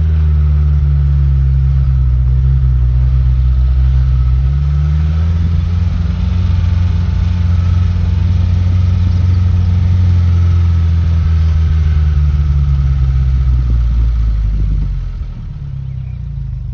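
Suzuki Sidekick's engine running steadily as it tows a sickle bar mower through hay. Its pitch rises about four to five seconds in, and it drops away quieter near the end.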